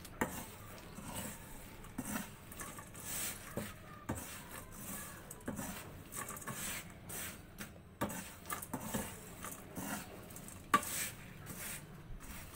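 Peanuts and coarse salt rattling and scraping in a karahi as they are stirred and tossed with a wire-mesh skimmer, in irregular strokes. The peanuts are being dry-roasted in hot salt.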